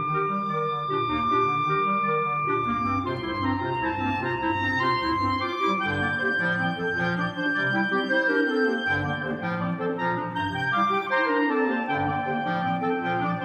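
A clarinet quartet (E-flat clarinet, two B-flat clarinets and bass clarinet) playing: long held notes in the upper parts over a rippling, repeated figure of short notes in the lower parts.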